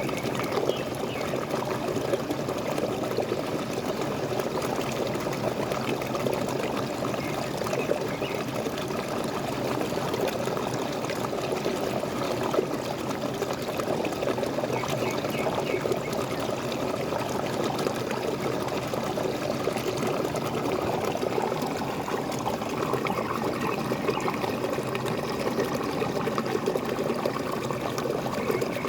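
Small waterfall: water splashing and gurgling steadily.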